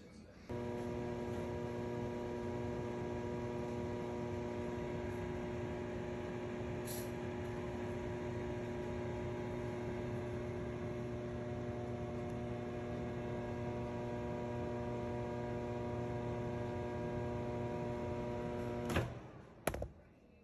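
Whirlpool microwave oven running with a steady buzzing hum, a very distinct noise that is usually the sign of a failing magnetron in a microwave that is not heating. The hum cuts off about 19 seconds in, followed by a couple of sharp clicks.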